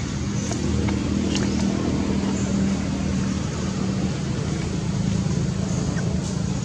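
A motor engine running steadily, a low hum with a few faint ticks over it.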